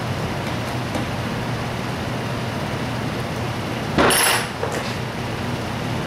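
Steady background hiss and low hum, with a short loud clatter about four seconds in as something is put down on the wooden workbench, followed by a fainter knock.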